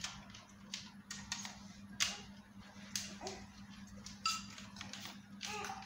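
Light, irregular clicks and scrapes of an electrical wire being handled and threaded into a long plastic LED light fitting, over a steady low hum.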